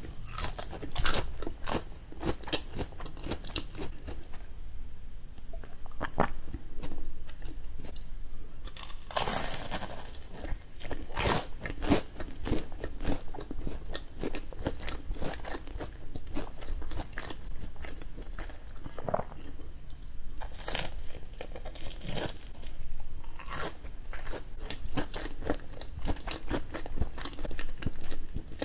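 Close-miked crunching and chewing: a raw daikon radish stick crunched between the teeth, then bites into and chewing of a corn dog's fried batter, with a few louder bites.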